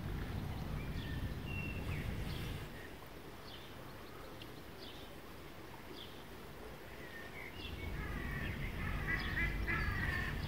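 Birds calling in short, scattered chirps, then a louder run of repeated calls from waterfowl in the last couple of seconds. Under them is a low rumble, stronger at the start and near the end.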